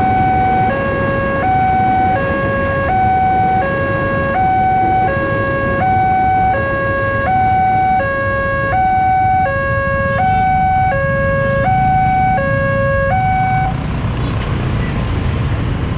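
Railway level-crossing electronic warning siren sounding a two-tone hi-lo alarm, switching between two pitches about every three-quarters of a second. It cuts off about 14 seconds in, leaving steady road-traffic noise.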